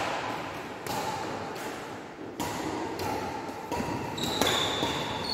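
Badminton rally: several sharp racket strikes on the shuttlecock and footsteps on a wooden court floor, with high squeaks of sneakers on the floor in the second half.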